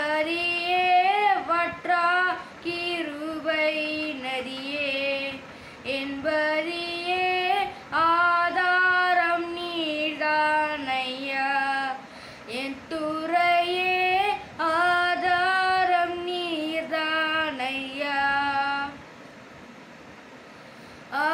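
A boy sings a Tamil Christian song solo without accompaniment, with phrases ending in long held notes. The singing breaks off about nineteen seconds in for a pause near the end.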